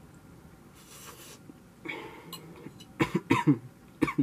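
A man coughing, with a couple of short, sudden coughs about three seconds in and another near the end.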